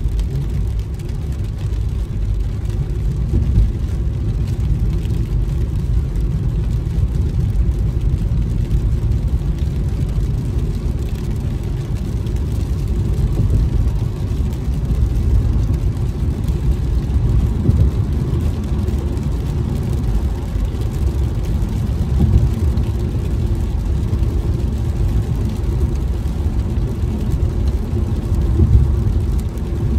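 Steady low rumble of a car driving on a wet freeway, heard from inside the cabin.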